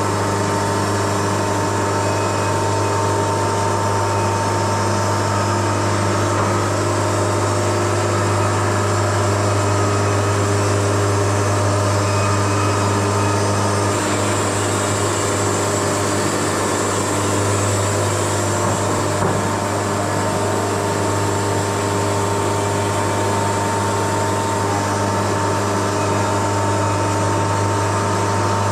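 Wood-Mizer LT70 sawmill running steadily, a low hum with several steady tones. About halfway through, a higher hiss comes in for several seconds.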